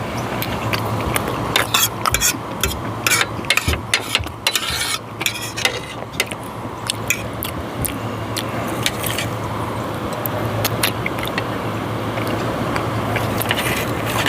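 Cutlery clicking and scraping against a plate while steak is cut, with many sharp clicks in the first half and fewer later, over a steady low hum.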